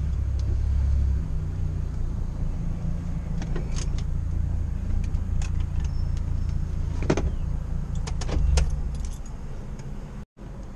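Chevrolet Cobalt SS's supercharged four-cylinder engine running at low speed, heard from inside the cabin as a steady low rumble. A few light clicks and jingles come in around the middle and near the end.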